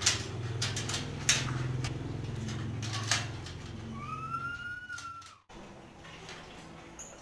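Sharp metal clicks and clanks of a padlock and wire-mesh gate being worked by hand, over a low hum. About four seconds in, a single drawn-out call that rises slightly and lasts about a second.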